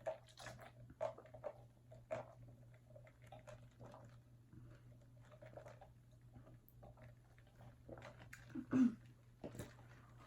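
A person chewing fast food close to the microphone: soft wet mouth clicks and small crunches. A brief low sound from the throat comes near the end.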